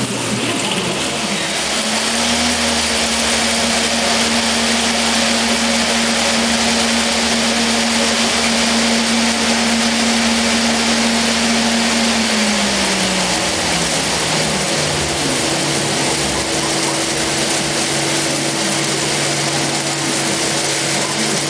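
CNC machine running while cutting a part: a steady hum over a loud hiss, the hum dropping in pitch about twelve seconds in, with a second, higher hum joining a little later.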